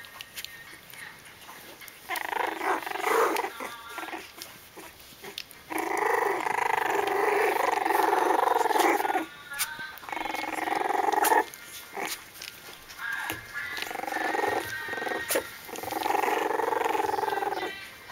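Jack Russell terrier puppies play-growling and whining at each other while they wrestle, in several long stretches a few seconds each, with short pauses between.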